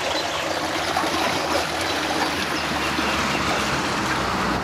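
Storm water rushing steadily down through a roadside drain grating, the drain quite busy with runoff from prolonged heavy rain.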